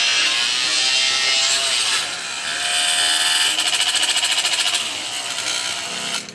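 Handheld electric oscillating sander running with a bottle of model paint held against its pad to shake the paint: a high motor whine whose pitch wavers, with a fast rattle midway through. It cuts off near the end.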